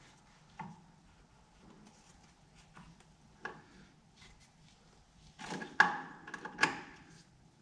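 Metal spanner clicking and knocking on the sump drain plug of a Massey Ferguson 35X tractor as the plug is refitted and tightened. A few sharp, lightly ringing clicks, with a quick cluster of louder knocks near the end.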